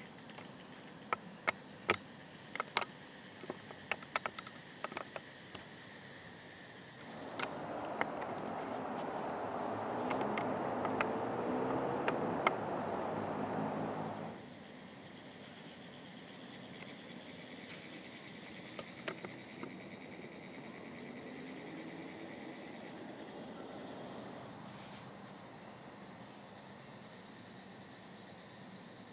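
Steady high-pitched chorus of insects in the woods, with a fast ticking insect call in the first few seconds and scattered sharp clicks. From about seven seconds in, a louder rushing noise with a low drone covers it, then cuts off suddenly about halfway through.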